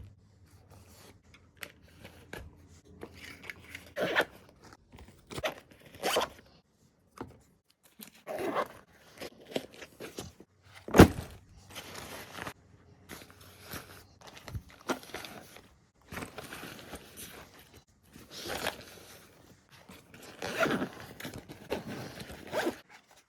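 Bags and gear being handled while packing: irregular rustling, zipping and scraping, with a sharp knock about eleven seconds in.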